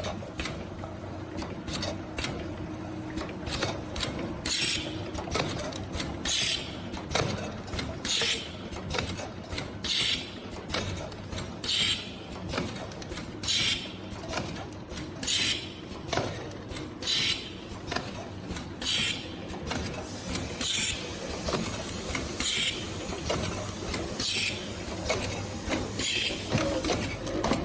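FH-FLV30 automatic can seaming machine running: a steady mechanical hum with small clicks, and a short hiss that repeats at an even pace about every two seconds.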